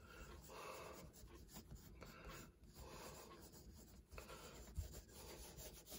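Faint scratching of a red colored pencil sketching on toned sketchbook paper, in short irregular strokes with brief pauses.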